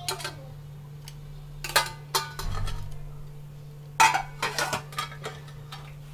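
Utensil clinking and knocking against a pan and a plate in a run of separate short clicks while french fries are served onto the plate, with a cluster of knocks about four seconds in.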